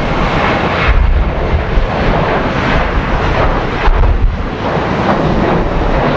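Strong gusty wind buffeting the microphone: a loud rumbling roar that swells and dips with the gusts.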